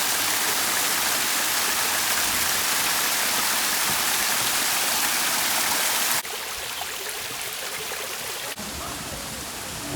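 Waterfall water rushing in a steady, dense hiss. About six seconds in it cuts suddenly to a quieter, duller rush of falling water, with another abrupt change near the end.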